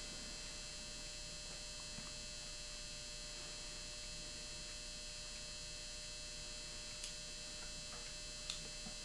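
Steady electrical hum and hiss, with two faint ticks near the end.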